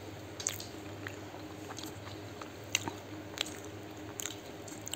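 Someone chewing a mouthful of vada pav, a soft bun with a besan-fried spiced potato fritter, with a few scattered small wet clicks and smacks of the mouth.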